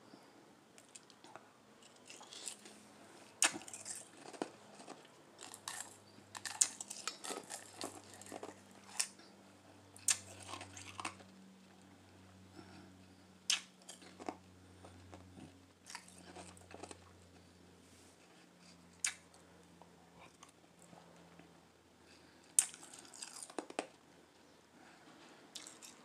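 Crushed ice being crunched and chewed in the mouth: quieter chewing, broken by several loud, sharp crunches every few seconds.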